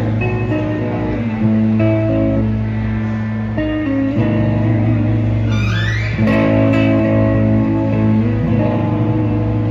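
Shabat Lynx electric guitar with a Floyd Rose tremolo being played: sustained notes over a steady low note, with the pitch sliding down about six seconds in.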